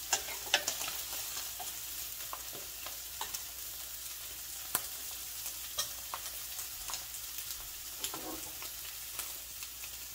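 Pink salmon fillets searing in olive oil in a skillet: a steady sizzle with scattered sharp pops and clicks. A spoon stirring in a small metal saucepan gives a few of the loudest clicks in the first second.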